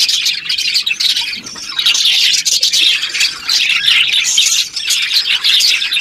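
Budgerigars chirping and squawking in a dense, unbroken chatter of many short calls.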